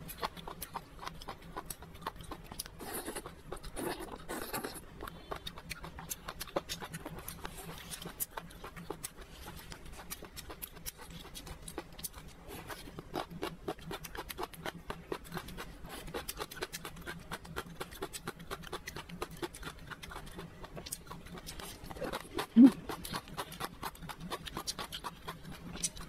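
Close-miked chewing of crunchy beef tripe, celtuce stems, chicken cartilage and duck intestine in chili oil: a steady run of small crunches and wet mouth clicks, with one louder short mouth sound late on.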